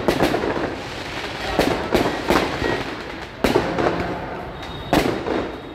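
Firecrackers going off: about six sharp bangs at irregular intervals, each with a short echo, over a steady crowd din.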